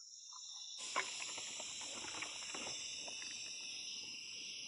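Hands rubbing salt and seasoning into a whole carp in a metal tray: soft wet squishing with small scattered ticks, starting about a second in with a sharp click. A steady high insect drone runs underneath.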